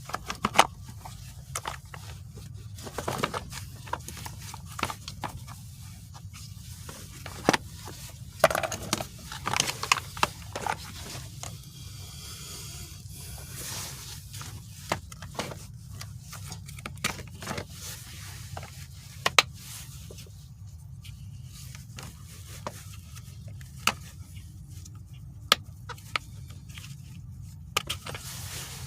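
Irregular clicks, knocks and scrapes of hard parts being handled and worked on, as a manual transmission shifter assembly is taken apart. The clicks are sharp and single, with a busier run of scraping a little past a third of the way in. A steady low hum sits underneath.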